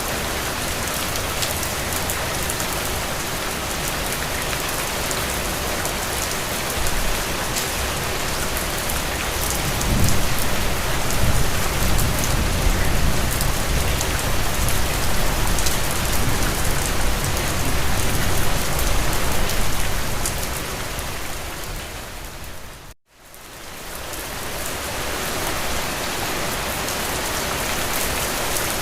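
Steady rain on a surface, dense and hissing, with a deeper low rumble swelling in from about ten seconds in. Around three-quarters of the way through, the rain fades quickly to a moment of silence, then fades back in.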